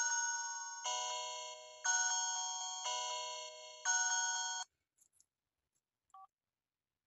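Sony Ericsson T608 incoming-call ringtone: a chime-like melody of bell notes, a new note about once a second, each fading away, that cuts off suddenly about four and a half seconds in. A faint short beep follows near the end.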